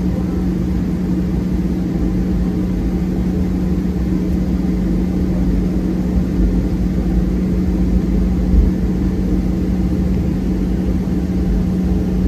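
Cabin noise of a Boeing 737-800's CFM56 engines at low thrust as the jet rolls on the ground after landing, heard from a window seat over the wing: a steady low rumble with a constant hum. A single brief bump stands out about eight and a half seconds in.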